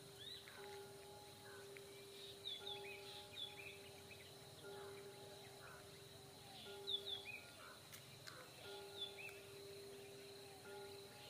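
Faint birdsong: many short chirps and whistled calls from several small birds, over a steady low tone that drops out and comes back every second or two.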